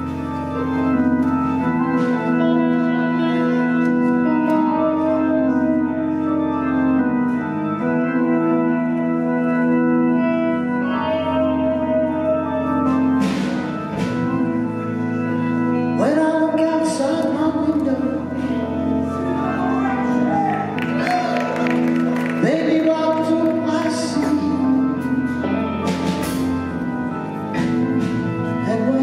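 Live rock band in a hall: an organ sound from a Korg keyboard holds slow, sustained chords over long bass notes. Cymbal crashes and busier band playing join in the second half as the music builds.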